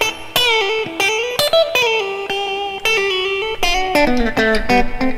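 PRS SE electric guitar with a roasted maple neck, played on its middle pickup position through an amp with overdrive: melodic single-note lead lines with bends and slides, held notes between quicker runs near the end.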